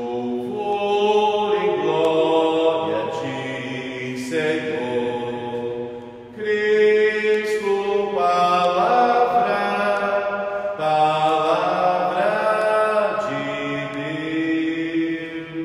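A voice singing a slow, chant-like liturgical melody in three phrases, with short breaks about 6 and 11 seconds in: the sung acclamation between the psalm and the Gospel of the Mass.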